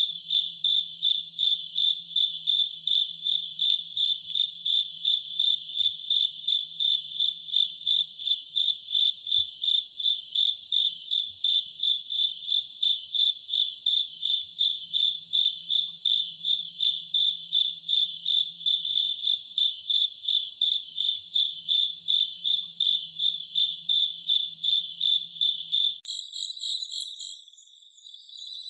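Insect chirping, a cricket-like high tone repeated steadily about two to three times a second. Near the end it gives way to a different, fainter call with higher notes.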